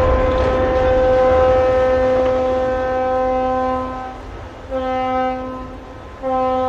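Ship's horn sounding for a side launch: one long blast, then two shorter blasts, over a low rumble of water thrown up by the hull hitting the water in the first couple of seconds.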